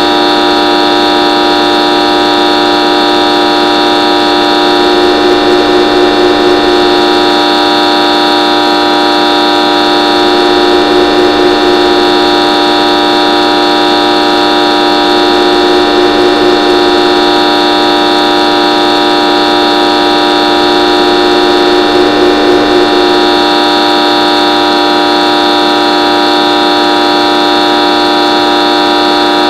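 A loud, steady horn-like drone made of many held tones at once, swelling slightly every five or six seconds without a break.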